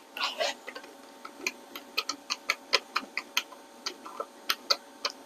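Light, regular clicking, about four clicks a second, as a hand tool turns a stock screw into an HW95 air rifle's action. A faint steady hum runs beneath.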